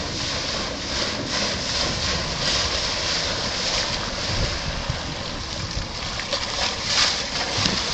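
Wind buffeting the microphone over choppy water, a steady rough rush with gusty low rumbles; no distinct outboard engine note stands out.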